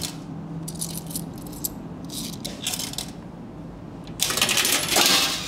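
Several coins clinking one after another as they are dropped into the coin slot of a locker-style vending machine. About four seconds in comes a louder, rattling clatter lasting about a second as the compartment's knob is turned and its door unlatched.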